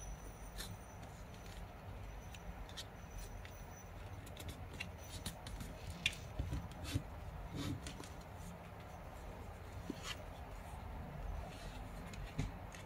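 A square of origami paper being folded and creased by hand: scattered sharp crinkles and clicks over a steady low background rumble.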